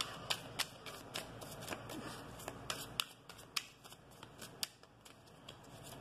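A deck of tarot cards shuffled by hand: a run of irregular, crisp card snaps and flicks.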